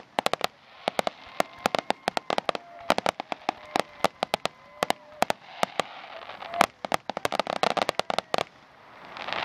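Grand-finale fireworks barrage: sharp aerial shell bursts in rapid succession, several a second, stopping shortly before the end.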